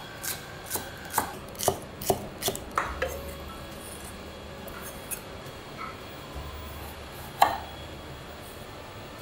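Chef's knife chopping green onions on a wooden cutting board: a quick run of sharp knocks, about three a second, for the first three seconds. Then it goes quieter, with one louder knock near the end.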